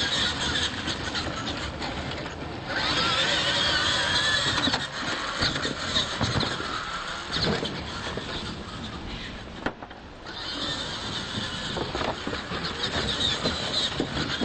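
Radio-controlled monster trucks racing on a dirt track: motors and gears whining, the pitch wavering up and down with the throttle, over the rush of tyres on dirt. The sound drops away briefly twice, about 3 and 10 seconds in.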